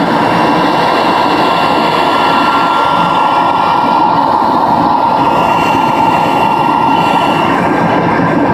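Soviet-era Raketa vacuum cleaner running: a loud, steady motor whine over rushing air.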